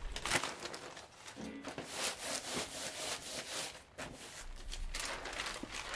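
Newspaper sheets rustling in irregular stretches as they are handled and laid over damp cotton printing paper to blot off excess water.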